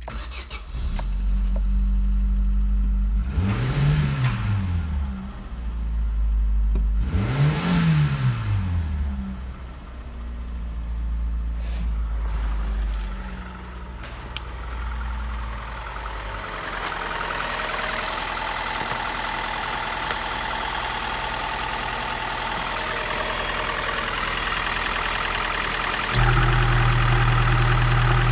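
Opel Astra G's 1.6-litre X16SZR eight-valve four-cylinder petrol engine starting about a second in, revved briefly twice, then idling steadily. Near the end the idle becomes clearly louder as the oil filler cap is off and the engine is heard close up through the open filler neck.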